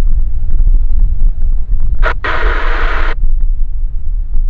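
Wind buffeting the microphone with a heavy, constant low rumble. About two seconds in, a click and then a burst of airband radio hiss lasting about a second, like a squelch opening with no voice.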